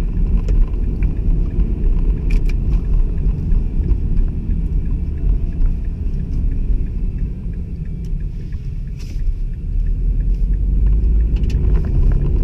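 Low rumble of road and engine noise inside the cabin of a 2006 Mazda 6 manual, driven at low speed. It drops off a little about seven seconds in and picks up again near ten seconds.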